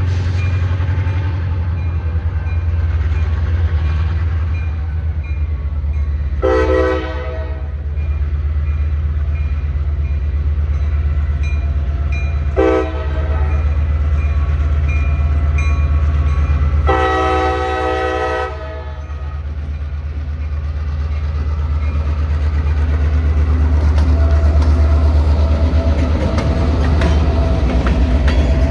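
Diesel freight locomotive running with a steady low rumble while its train moves, sounding its air horn three times: a short blast about six seconds in, a brief toot about thirteen seconds in, and a longer blast about seventeen seconds in.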